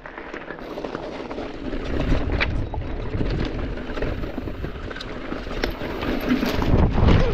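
Mountain bike riding down a rocky dirt trail: tyres rolling and crunching over stones and dirt, the bike rattling, with sharp knocks as it hits rocks and a low rumble of wind on the microphone. It grows louder from about a second in and is loudest near the end.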